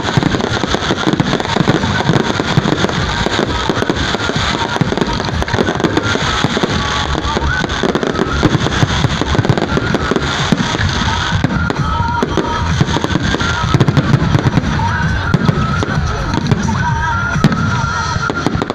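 Fireworks display: many aerial shells bursting with bangs and crackling in quick succession, without a pause.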